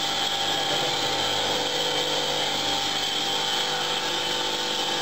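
Foam profiling press machine running steadily, its studded roller turning: a constant, even machine noise with a few steady tones and no changes.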